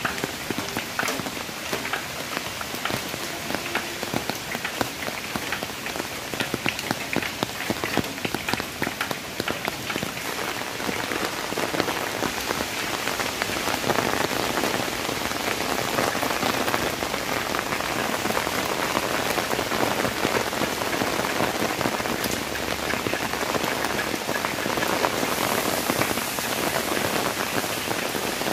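Heavy cyclone rain falling on leaves and wet ground: a dense, even hiss packed with the patter of countless drops. It grows louder and fuller a little before halfway through.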